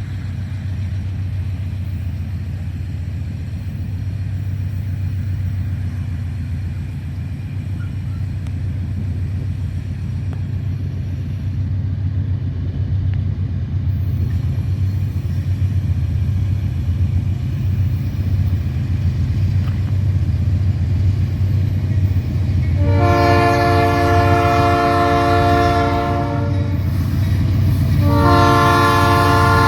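Diesel freight locomotives (GE B39-8Es) running with a steady low rumble that slowly grows louder as they approach. About three-quarters of the way in, the locomotive's multi-note air horn sounds a long blast, then a second long blast that is still going at the end.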